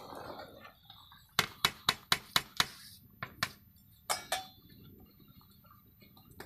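Metal ladle clinking against a metal cooking pot of vegetable biryani: a quick run of about six sharp clinks, then two pairs of single clinks. The biryani is being stirred while its last water cooks off.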